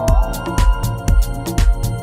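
Electronic background music with a steady beat, about three beats a second.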